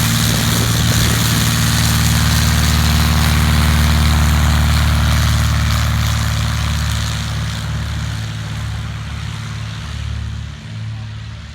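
Light propeller airplane's piston engine running loud and steady, then fading away over the last few seconds as the plane moves off.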